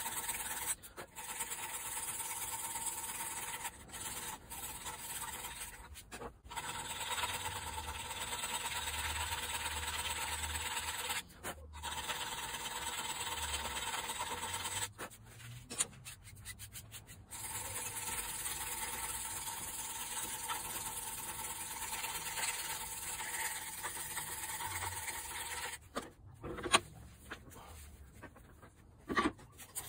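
Hand file rasping on the cast-iron body of an old Record vice, with a few short pauses. Near the end there is a single sharp knock.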